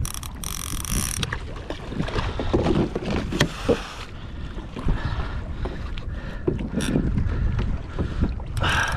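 Wind buffeting the microphone and water sloshing against a kayak hull, with scattered clicks and knocks from a large fishing reel and rod being worked while a tuna is fought beside the kayak. Short hissing bursts come about a second in and near the end.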